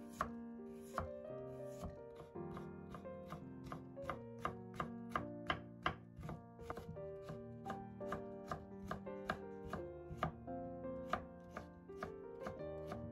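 Chef's knife cutting a raw potato on a wooden cutting board, first into slices and then into thin matchsticks: a steady run of knife strikes on the board, about two to three a second. Soft background music plays underneath.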